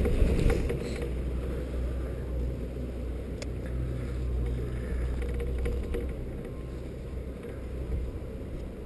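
Steady low rumble of a moving chairlift chair heard through a GoPro camera fixed to it, with wind on the camera.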